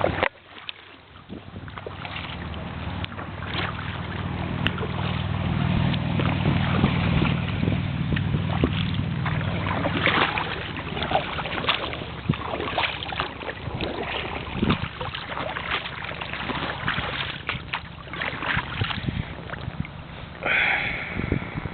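Kayak paddle strokes dipping and splashing in creek water, with a low rumble during the first half.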